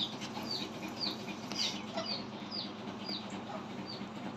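A bird chirping over and over: short, high, falling chirps about twice a second, over a steady low hum.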